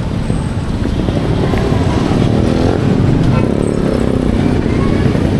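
Motorcycle and car engines running close by in street traffic, over steady road noise.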